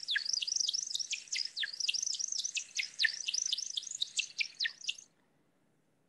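American woodcock's courtship display flight: a quick run of high, liquid chirping and twittering notes as the bird falls back down to the ground. It stops abruptly about five seconds in.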